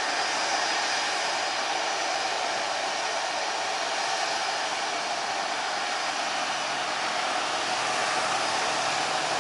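Twin rear-mounted turbofan engines of a business jet running at taxi idle: a steady rushing hiss with a faint high whine on top.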